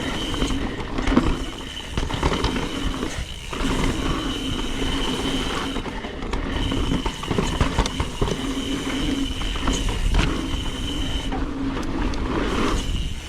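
A 2020 Trek Remedy 9.8 mountain bike rolling fast down a damp dirt trail: tyre roar and wind on the helmet camera mic, with frequent knocks and rattles from bumps and jump landings. A steady high whine runs underneath and drops out briefly a few times.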